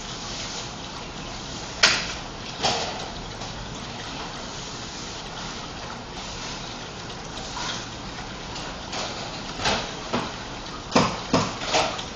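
Steady background hiss with scattered short knocks and clatters: two about two seconds in, and a quick run of four or five near the end.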